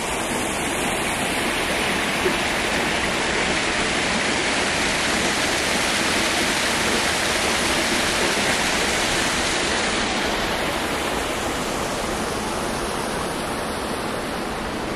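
Rocky forest stream rushing steadily over small cascades, a little louder in the middle stretch and easing slightly near the end.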